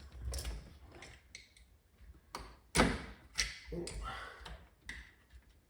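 Small metal hand tools tapping and clicking in a scattered, irregular series, with one louder knock about halfway through.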